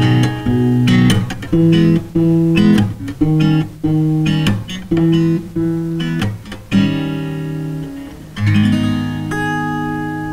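Capoed steel-string acoustic guitar, fingerpicked: a steady run of single plucked notes, then a last chord a little after eight seconds in that is left to ring out and fade, ending the song.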